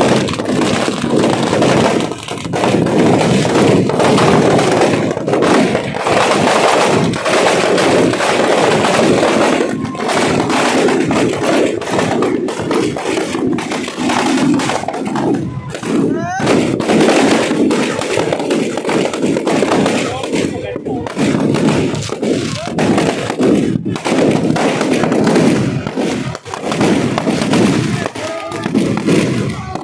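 Firecrackers going off in a rapid, continuous string of sharp cracks, with crowd voices shouting over them.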